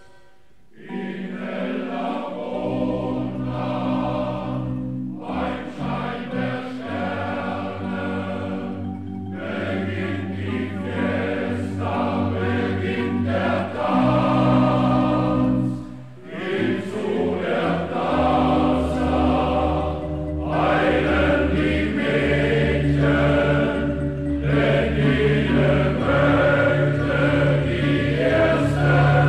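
Background music with choral singing: sustained chords over a low bass line, in long phrases broken by short pauses.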